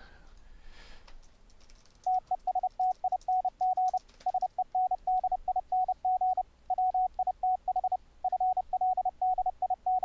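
Morse code (CW) sent by the FLdigi software keyer as a single-pitch tone keyed on and off in dots and dashes, spelling out "TESTING SENDING WITH FLDIGI". It starts about two seconds in, after a few faint keyboard clicks.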